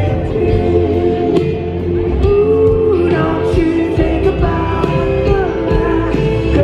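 Live band music: a voice singing over guitars, keyboard, bass and drums.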